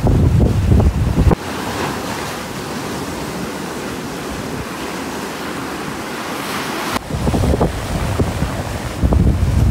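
Surf washing over a rocky shoreline, a steady rushing hiss, with wind buffeting the microphone in heavy low gusts. The gusts drop away about a second in and return about seven seconds in.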